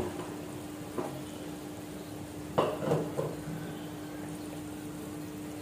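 Water and vegetables boiling in an aluminium kadai on a gas burner, with a few short knocks of a metal spatula on the pan, one about a second in and a quick cluster just past the middle.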